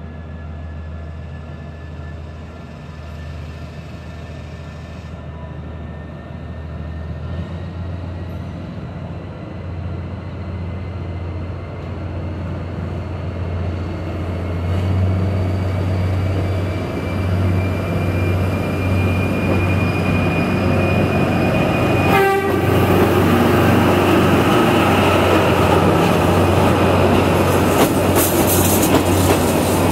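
A DFH21 diesel-hydraulic locomotive on a metre-gauge line pulls away and comes closer. Its engine drone grows steadily louder, with a faint whine slowly rising in pitch as it gathers speed. A horn note dies away right at the start, there is a sharp knock as the locomotive passes about 22 seconds in, and then the coaches roll by with wheels clicking over the rail joints.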